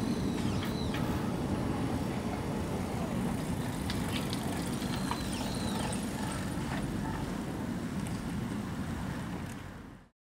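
Electric train running past over the level crossing: a steady low rumble of wheels on rail, with a few short high squeals over it, fading and cutting off suddenly near the end.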